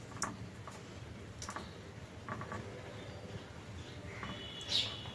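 Faint scattered clicks and light taps of hands working dough over a momo mould, with a slightly louder one near the end.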